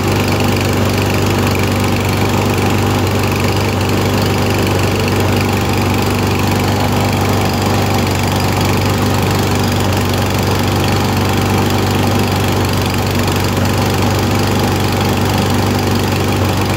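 Husqvarna walk-behind mower's single-cylinder OHV engine running steadily while warming up. Its automatic choke is still slowly opening, which the mechanic says makes it sputter and smoke for a while before it runs normally.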